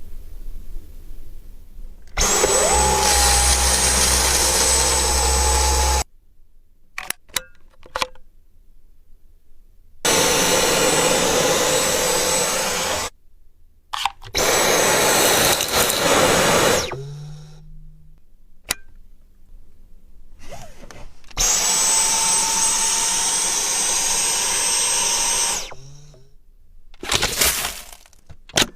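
Dyson V10 Absolute cordless stick vacuum running in four separate runs of a few seconds each, with a steady high whine over the rush of air. Each run starts and cuts off abruptly as the motor is switched on and off.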